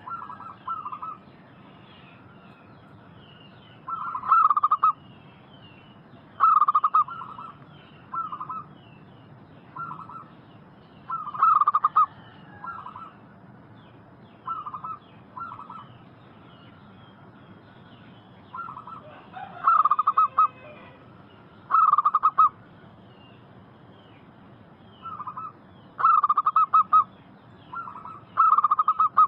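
Zebra doves (perkutut) cooing in short phrases of soft, rapid notes, a phrase every few seconds, over faint higher chirping.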